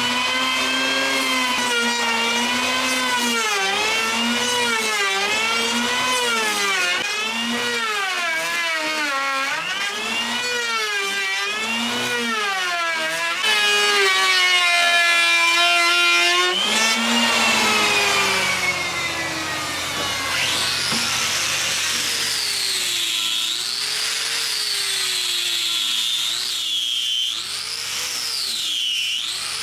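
Handheld electric power tool cutting into the wood of a boat rudder to taper its edge. The motor's pitch dips and recovers about once a second as each pass bites. After about halfway it runs higher and steadier, then drops, and the pitch sweeps slowly and unevenly for the rest.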